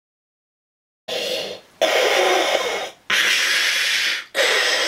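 A man imitating Darth Vader's respirator breathing: four hissing breaths, each about a second long, starting about a second in.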